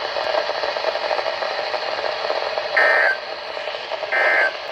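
Weather radio receiver tuned to NOAA station KGY68, hissing with static; two short data bursts about a second and a half apart, the SAME end-of-message code that closes the weekly test transmission.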